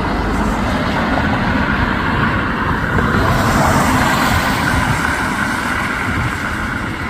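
Jet airliner engines running loud and steady, with a high hiss that swells about three seconds in.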